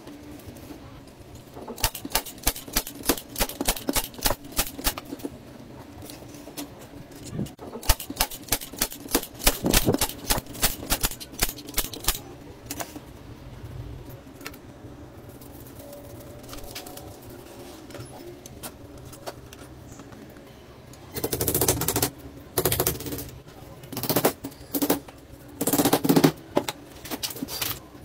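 Runs of rapid clicking and rattling, then louder clattering bursts near the end, from hands working the wooden parts and wire mesh of a homemade bird cage.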